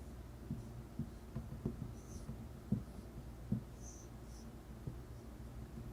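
Quiet hand writing or drawing: faint scattered taps with a few short high squeaks, as the example weld symbol is drawn out.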